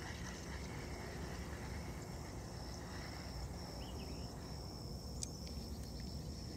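A steady, high insect trill over a low background rumble, with a faint chirp near the middle and a brief click about five seconds in.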